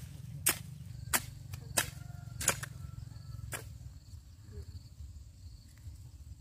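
Sharp knocks, about one every two-thirds of a second, stopping about three and a half seconds in, over a steady high insect drone and a low rumble.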